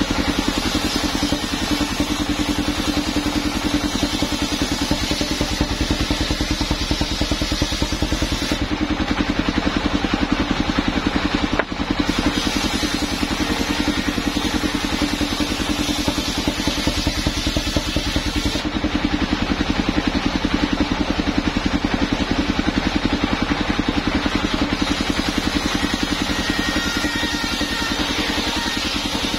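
Engine of a homemade circular-saw sawmill running steadily with a fast, even pulsing beat while its large blade spins.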